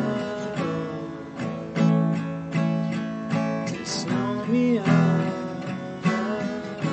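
Acoustic guitar strummed, with the chords ringing on between strokes.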